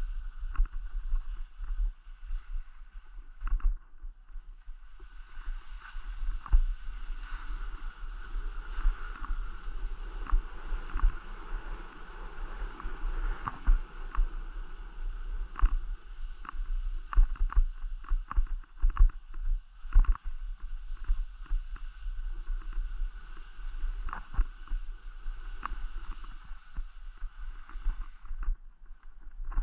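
Skis sliding and scraping on snow: a hiss that sets in about five seconds in and fades out near the end, with many sharp clicks and knocks over a steady low rumble.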